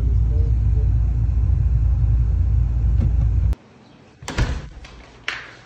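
Steady low road rumble inside a moving car's cabin, which cuts off suddenly about three and a half seconds in. Two short, loud rustling bursts follow near the end.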